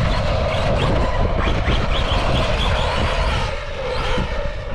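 Brushless motor and drivetrain of a stock Arrma Big Rock 3S RC truck, geared with a 20-tooth pinion, whining and rising in pitch again and again as it is punched on the throttle. Under it is heavy wind buffeting on the microphone.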